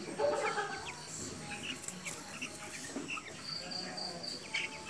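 Background animal calls: a pitched call near the start, then scattered short high chirps, with a quick run of high pips about three and a half seconds in.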